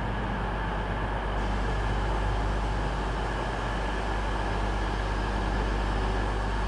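Diesel train running steadily, its engine sound strongest low down with a steady hum above, growing slightly fuller after the first second or so.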